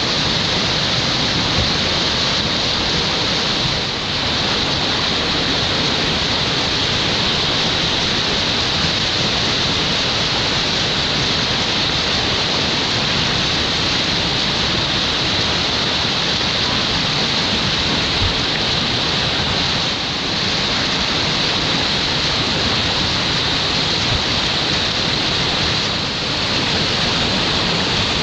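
Whitewater rushing steadily through a rapid in an artificial whitewater course channel.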